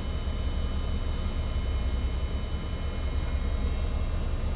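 Steady low machinery hum with a constant hiss and faint, steady high-pitched whines over it.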